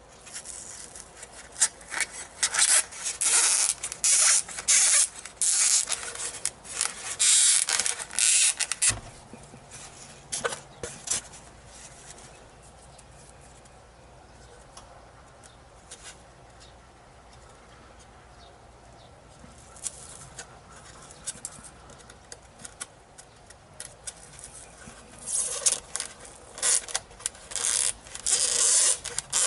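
Foam model-airplane wing and wooden skewers scraping and rubbing against each other as they are handled, in a run of short scratchy strokes over the first nine seconds and again near the end.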